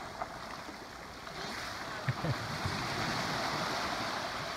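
Small waves lapping and washing at the edge of a sandy beach, a steady soft wash of water.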